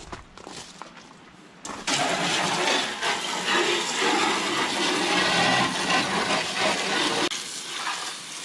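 Water spraying hard from a hose onto the engine bay, rinsing off degreaser; it starts about two seconds in and cuts off sharply about seven seconds in.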